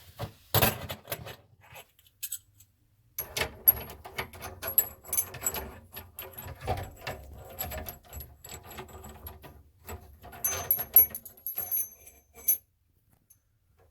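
Faucet mounting washer and nut clinking and rattling as they are handled and fitted from under the sink, a run of small metal clicks and knocks with brief high ringing tones.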